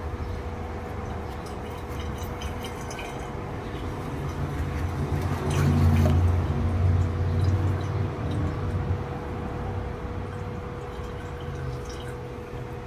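Used engine oil pouring and dripping from a cartridge oil filter housing as its cap is unscrewed by hand, the flow swelling to its loudest about halfway through and then easing. A faint steady hum runs underneath.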